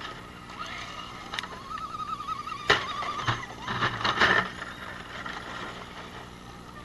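Electric scale RC rock crawler driving past close by: a wavering motor whine, sharp clicks and knocks, the loudest about two and a half seconds in, then a burst of tyres crunching over gravel about four seconds in.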